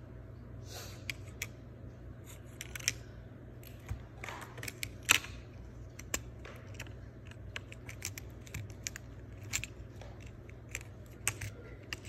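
Silicone bubbles of a three-bubble pop-it fidget spinner being pressed in and popping through, giving a string of irregular sharp clicks, the loudest about five seconds in.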